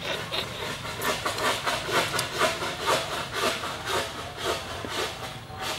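Rapid slurping as cooked baby snails are sucked out of their shells, a quick run of short noisy sucks about four a second.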